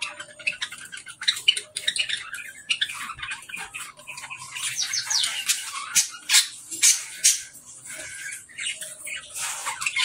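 A flock of budgerigars chattering all at once: a dense, unbroken mix of warbles, chirps and sharp squawks, busiest around the middle of the stretch.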